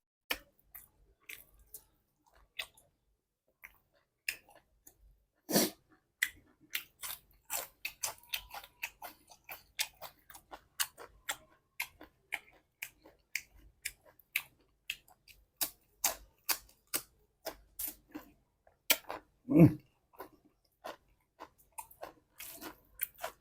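Close-miked mukbang chewing: a person eating beef curry, with steady wet chewing and lip smacks several times a second. A louder slurp or bite comes near the end.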